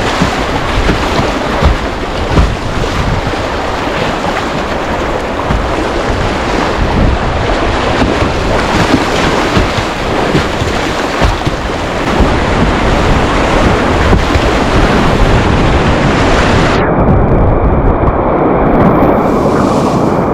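River whitewater rushing through rapids, a loud steady roar of moving water with wind on the microphone and occasional splashes. Near the end the sound abruptly turns duller, as the higher part of the rush drops away.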